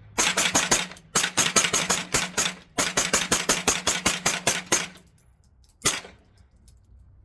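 CZ Scorpion pistol-calibre carbine fired in three fast strings, about eight shots a second with short pauses between them, then one last shot about six seconds in.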